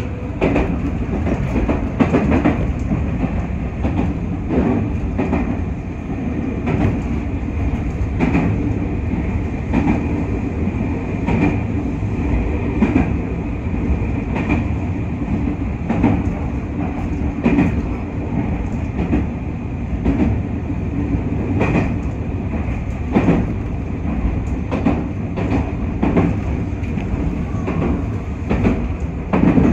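JR West 221 series electric train running at speed, heard from inside the car: a steady rumble of wheels and running gear, with the clickety-clack of wheels crossing rail joints about every second and a half.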